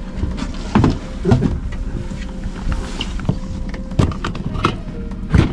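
Sounds aboard a small fishing boat on the water: a steady low rumble broken by about five sharp knocks.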